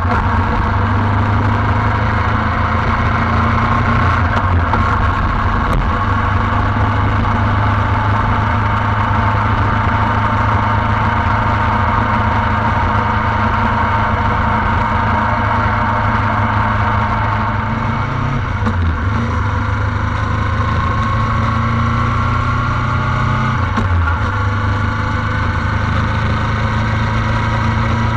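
A vehicle engine running steadily. Its pitch dips briefly twice in the latter part, then climbs slowly toward the end.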